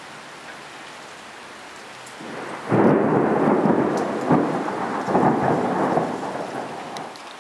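Thunder: a loud crack about two and a half seconds in that rolls on in several peals for some four seconds and dies away, over steady rain.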